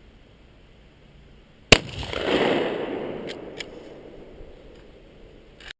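A single blast from a Remington 870 12-gauge pump-action shotgun loaded with birdshot, about a second and a half in, followed by a rolling echo that swells and then fades over the next few seconds. Two short clicks follow soon after the shot.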